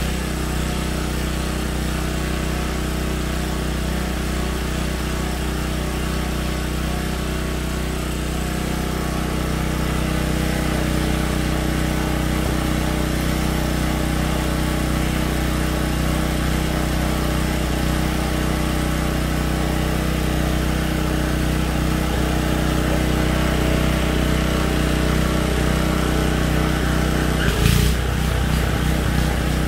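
Snow blower engine running steadily under load, a little louder about a third of the way in, with a single sharp knock about two seconds before the end.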